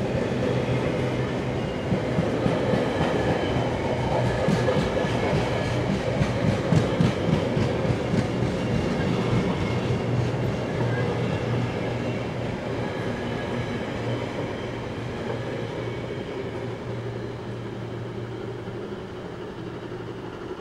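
Container freight train wagons rolling past on the rails, a steady low rumble with a quick clatter of wheels over rail joints, the sound gradually fading over the second half.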